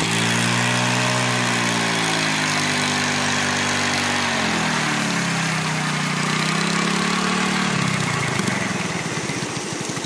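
Hero Glamour motorcycle's single-cylinder engine running steadily, its pitch dropping about four seconds in and then wavering up and down, while the loaded trolley bed is raised hydraulically to tip out sand and gravel.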